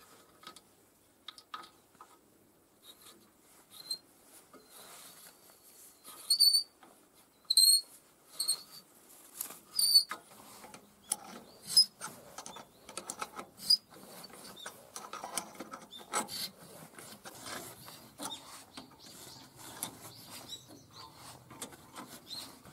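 An adjustable wrench working rusted bolts on an old excavator's undercarriage: metal clicks and knocks, with a string of short, high squeaks as a seized bolt turns, then denser clinking of loose metal parts.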